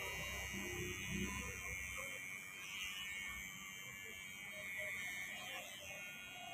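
Cordless electric hair trimmer buzzing steadily as it clips short hair around the ear on a closely shaved head.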